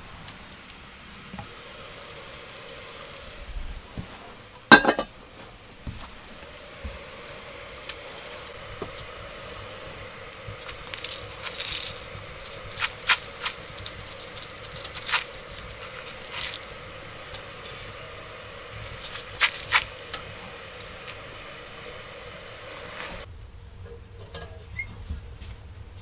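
Kettle on a wood-burning stove hissing steadily as it heats, with a faint held tone and scattered sharp clicks and taps, one loud crack about five seconds in. The hiss cuts off abruptly a few seconds before the end.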